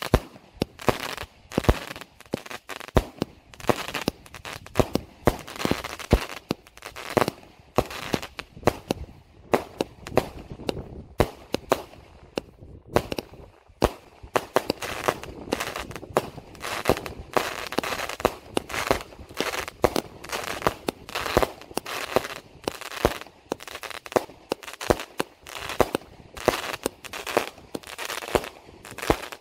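Consumer fireworks battery (cake) firing shot after shot into the air: a rapid string of sharp bangs, several a second, from shells launching and bursting.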